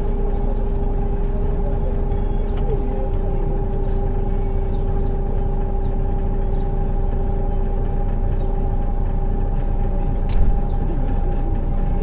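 A vehicle's engine idling steadily while stopped, with a constant low rumble and a steady hum over it. A brief low thump comes about ten seconds in.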